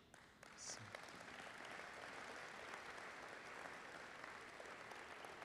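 Audience applauding, building about half a second in and holding steady.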